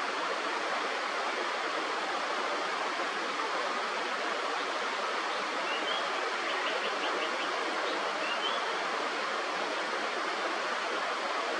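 Steady rush of a river or stream, with a few faint, high bird chirps about halfway through.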